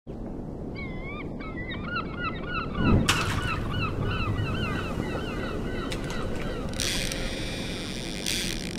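Seagulls calling over and over in short, wavering cries above a steady low rushing background, with a low thud about three seconds in and a hiss swelling near the end.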